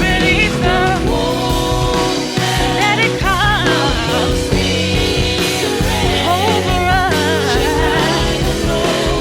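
Live gospel worship music: a band holds sustained chords while a singer's voice slides and runs through ornamented phrases above it, with no clear words.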